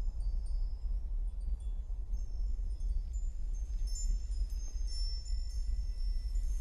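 Eerie film soundtrack: a steady deep rumble with thin, high tones coming and going above it, more of them about four seconds in.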